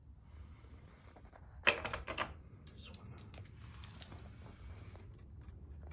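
Metal hand tools clicking and clattering as they are handled, with a sharp clack about two seconds in followed by a run of lighter, irregular clicks.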